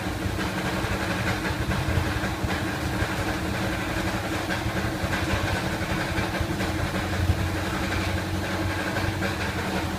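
Motorcycle engine idling steadily, an even, unbroken hum with no revving.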